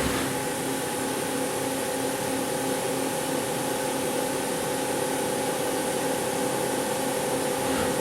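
Hurco TM6 CNC slant-bed lathe running: a steady machine hum and hiss with several steady tones, the sound shifting right at the start and again at the end.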